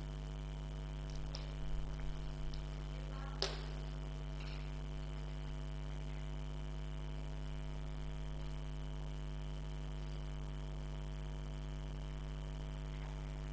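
Steady electrical mains hum, a low buzz with many evenly spaced overtones. A few faint clicks fall in the first few seconds, and one sharper tap comes about three and a half seconds in.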